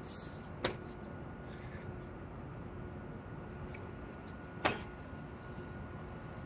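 Two sharp impacts from a person doing burpees on concrete, one about a second in and a louder one about four seconds later, over a steady background hiss.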